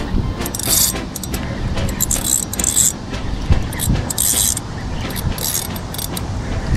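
Spinning-reel drag (Shimano Saragosa 14K) buzzing in several short runs as a hooked striped bass pulls line off, over wind rumble on the microphone.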